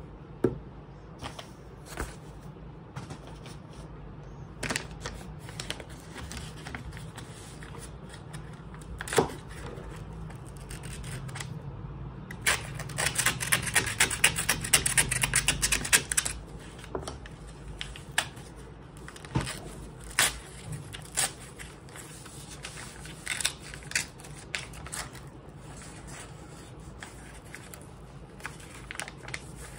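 Hands handling a kraft paper mailer, with scattered taps and paper rustles. About halfway through, a dense run of rapid crackling lasting about three and a half seconds as a knife slits the paper packaging open.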